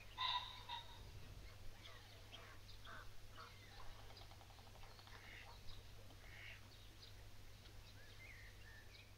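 Faint outdoor birdsong: short chirps and calls of birds scattered throughout, with one louder call just after the start. A steady low hum runs underneath.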